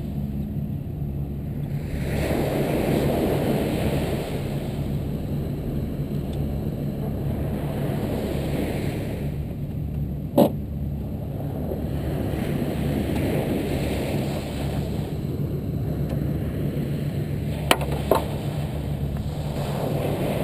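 A 2013 Jeep Wrangler JK's 3.6-litre V6 idling steadily, with gusts of wind buffeting the microphone. A sharp click about ten seconds in and two more close together near the end.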